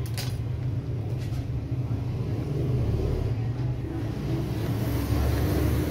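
A steady low mechanical rumble, with two short sharp clicks about a second apart near the start.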